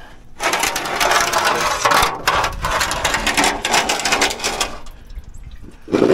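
Engine coolant pouring out of a GM LS-style V8, where the water pump is being removed, and splashing into a catch pan. It is a loud rushing spatter that eases off after about four seconds.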